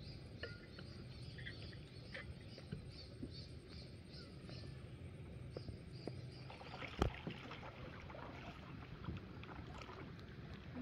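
Kayak being paddled on a calm river: quiet paddle strokes and water moving around the plastic hull. A faint high chirp repeats about twice a second for the first few seconds, and a single sharp knock comes about seven seconds in.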